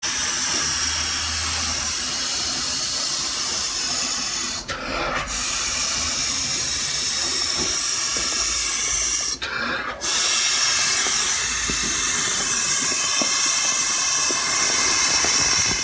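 A person blowing up an inflatable globe ball by mouth: long, steady rushes of breath into the valve, broken twice by short pauses for breath, about five and ten seconds in.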